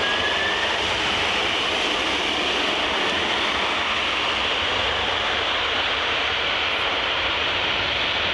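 Boeing 747-400 jet engines giving a steady, even roar as the airliner rolls out on the runway after landing, with its ground spoilers raised.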